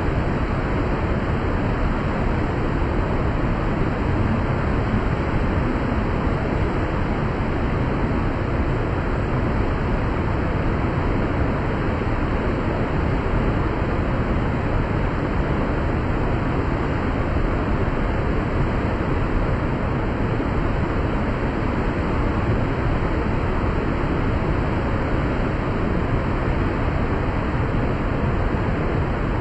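Steady, even rushing of fast-flowing water.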